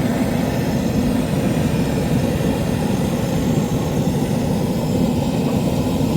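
Hand torch flame roaring steadily as it is held to a pellet smoke tube to light it.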